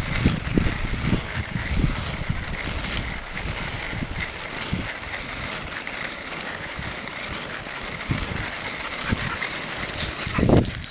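Inline skate wheels rolling steadily over rough asphalt, a constant hiss, with wind buffeting the microphone in low rumbles; a heavier bump comes near the end.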